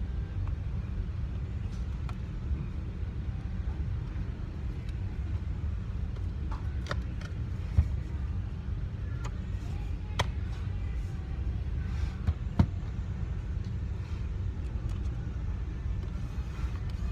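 Steady low rumble with scattered light clicks and taps, a few sharper ones near the middle, typical of small parts and tools being handled.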